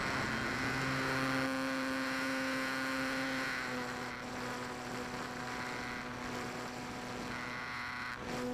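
Electric motor and propeller of an E-flite Apprentice RC trainer plane, heard from a camera on board: a steady humming whine at cruise power, its pitch dipping slightly about four seconds in.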